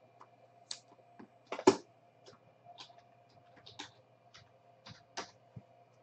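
Irregular light clicks and rustles of a gold-framed trading card being slipped into a clear plastic sleeve and handled, with one louder clack a little under two seconds in.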